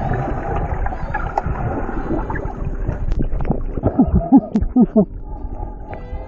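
Rough wind-and-water noise, with a few short, loud voice-like calls about four seconds in. Acoustic guitar music comes in near the end.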